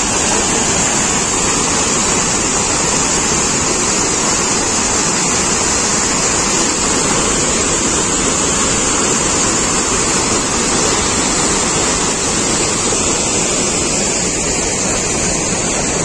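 Swollen floodwater rushing over a low weir: a loud, steady roar of falling and flowing water.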